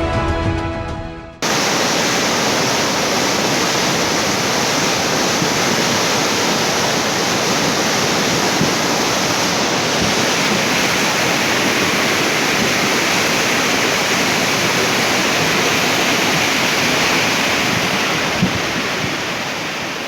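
Steady, loud noise of water, as from a rain-swollen torrent or heavy rain, with no other distinct events; it follows the last second and a half of intro music and fades out near the end.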